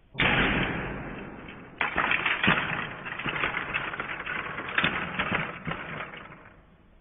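Lego Technic tractor (set 9393) hitting the ground with a sharp crash, then bouncing and rattling, with many plastic clicks and clatters that die away near the end.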